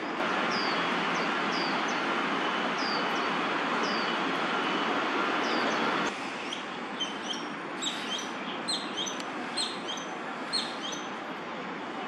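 Birds chirping over a steady hum of city traffic. For the first half there are short falling chirps about once a second; then, after a cut, a quicker run of sharp chirps over a quieter hum.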